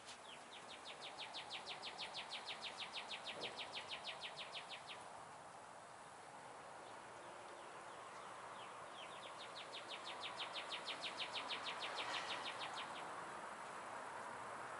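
A bird's rapid trill of evenly spaced high chirps, about nine a second, given twice, each lasting about four seconds, over a steady background hiss.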